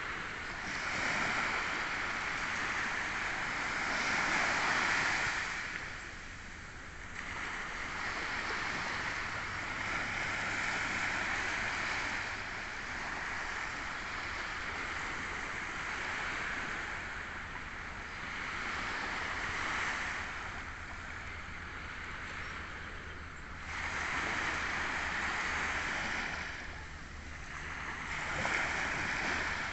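Small waves washing up a sandy beach: a hiss of surf that swells and falls back every few seconds.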